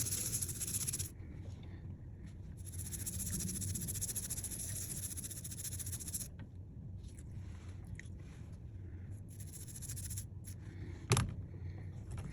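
Airy hiss from a hot air rework station's nozzle, cutting off about a second in and blowing again for about four seconds. Then come scattered small clicks of tools on the workbench and one sharp knock near the end.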